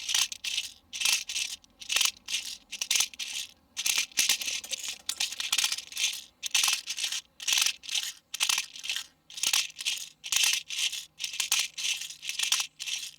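Airsoft BB speed loader being pumped into a G&G G2 metal 30-round magazine, the BBs rattling through with each press, about two strokes a second.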